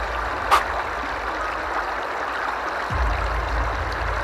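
Shallow river riffle rushing and splashing over rocks close by, a steady noise with a low rumble beneath it. A single sharp click comes about half a second in, and a soft low thump near the end.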